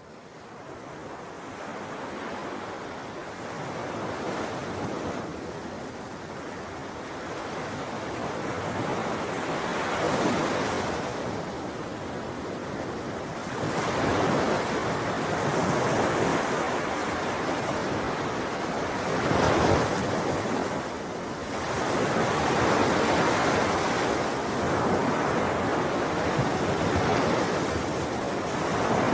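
Ocean waves breaking and washing on a shore in repeated swells that rise and fall every few seconds, fading in at the start.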